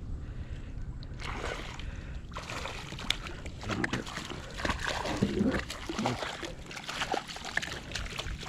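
Water splashing and sloshing as a hooked trout thrashes at the surface while it is reeled in, with scattered sharp clicks and a steady low rumble underneath.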